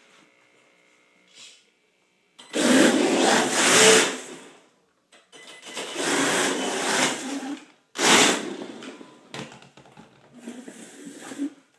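The electric motor and drivetrain of an HPI Pro D radio-controlled drift car whir in four throttle bursts of one to two seconds each. The first burst is the loudest and the last is softer. The car has just been brought to life and is not yet tuned.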